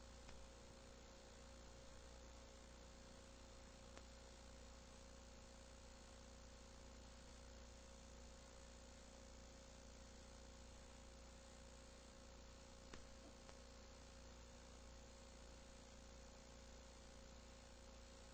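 Near silence: a faint steady electrical hum and hiss from an old videotape's audio track, with no game sound, broken only by a couple of faint ticks.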